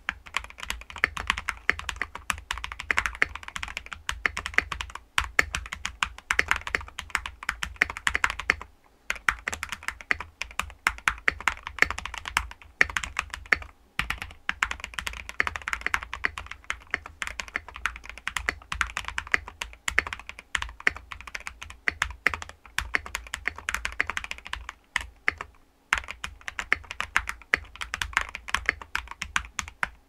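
Continuous typing on a modded Epomaker EP84 mechanical keyboard: a dense run of keystrokes broken by a few brief pauses. The board has Akko CS Silver linear switches and Sumgsn MG Black SA-profile PBT keycaps, with an EVA-foam and tape-modded case and plumber's-modded stabilizers for a damped sound.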